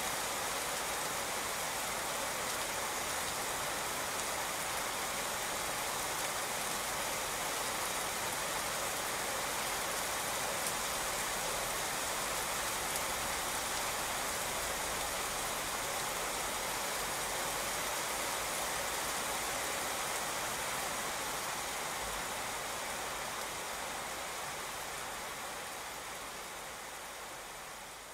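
Steady rain falling on a wet street and pavement, an even hiss that fades out over the last few seconds.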